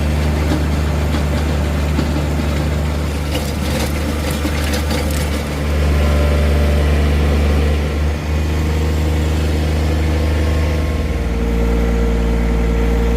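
An engine running steadily close by, with a deep even hum. Its sound shifts slightly about halfway through and again near the end, and some light clatter comes around four seconds in.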